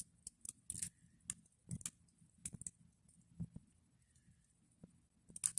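Faint, irregular clicks and crackles from a blanket, a patter that the man takes for something raining down on it.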